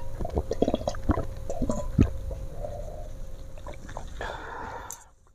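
A person drinking from an enamel mug: a quick run of gulps and swallows, thinning out after a couple of seconds, then a short breathy sound near the end before it cuts off.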